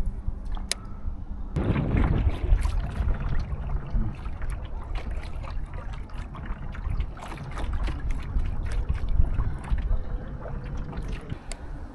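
Water sloshing and trickling around a Sportspal canoe as it moves along, with many small splashes and clicks and a low rumble that pick up about a second and a half in.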